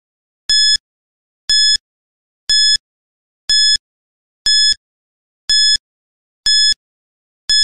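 Countdown timer sound effect beeping once a second, a short high electronic beep each time, about eight in all, ticking off the seconds as the count runs down.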